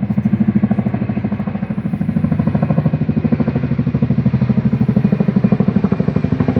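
Military helicopter flying low overhead, its rotor blades beating in a rapid, steady rhythm over the low hum of the engine.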